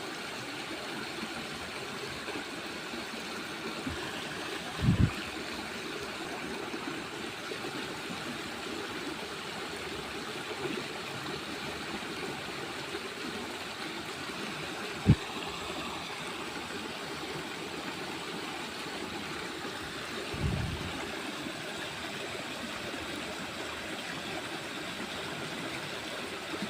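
Steady rush of flowing water, with three short low thumps, the middle one a sharp knock about halfway through.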